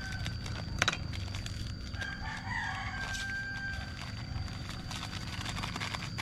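A rooster crows once, a rising call held on one steady note from about two to four seconds in. Plastic seasoning sachets are snipped open with scissors and crinkle as they are handled; the sharpest snip comes about a second in.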